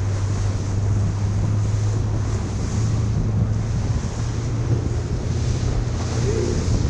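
Fishing boat's engine running with a steady low hum, wind buffeting the microphone and water washing against the hull.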